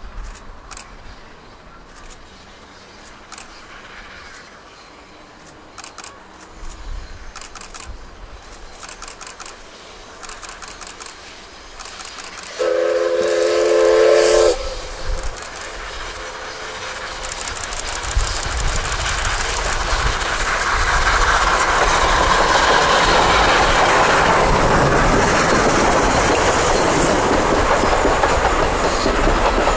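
Steam tank locomotive C11 227 approaching with a faint, even beat of exhaust chuffs, then sounding its steam whistle once for about two seconds, loud, a little before halfway. From about 18 seconds in, the train passes close: a loud, steady rolling rumble with the clickety-clack of the coaches' wheels over the rail joints.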